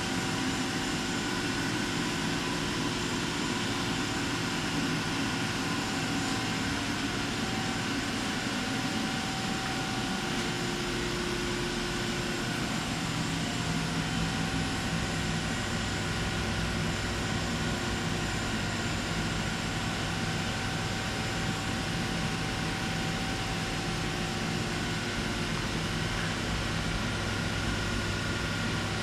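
Eurotech 730-SLY CNC turning center running under power: a steady mechanical hum with several steady tones. About twelve seconds in, its lower tones shift to a deeper pitch.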